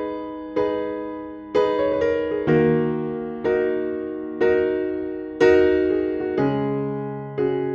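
Slow, calm piano music: a chord struck about once a second, each left to ring and fade before the next.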